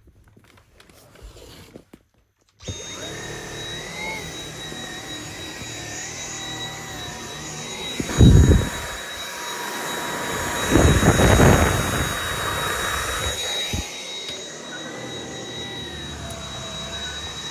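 Dyson V7 cordless stick vacuum switched on about two and a half seconds in, then running with a steady high-pitched motor whine. Twice, near the middle, the sound swells into a louder rush for a moment.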